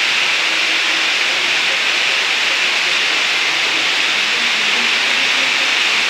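Steady, loud rush of a waterfall plunging into a cave: an even hiss of falling water that doesn't change.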